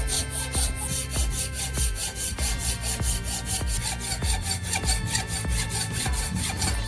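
A drill bit rubbed rapidly back and forth against an abrasive surface while it is sharpened by hand: a steady, rhythmic scraping of several strokes a second.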